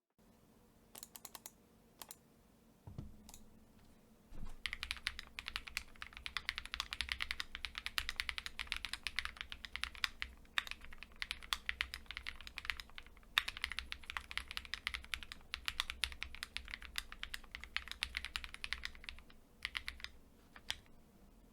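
Typing on an Akko ACR Pro Alice Plus gasket-mounted mechanical keyboard. A few separate keystrokes come first, then a long run of fast, continuous typing. After a short pause with a couple of keypresses, typing starts again near the end.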